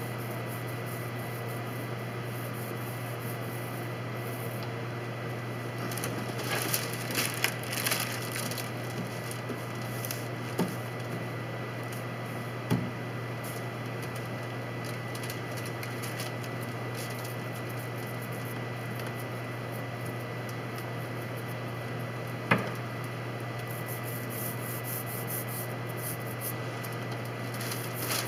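Paint-roller and brush work inside a wooden boat hull: soft rolling and rustling in two stretches, one a few seconds in and one near the end, and three sharp light knocks on the wood, over a steady low hum.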